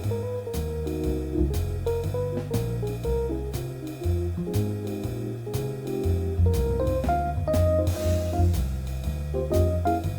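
Background music: a guitar-led instrumental in a jazz or blues style with bass and a steady drum beat.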